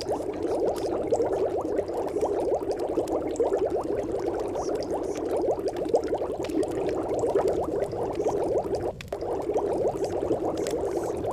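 Continuous dense bubbling, like water at a rolling boil, with a brief dip about nine seconds in.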